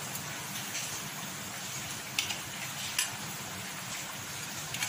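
Steady sizzle of dough frying in hot oil, with three sharp clicks of a steel spoon against a steel bowl.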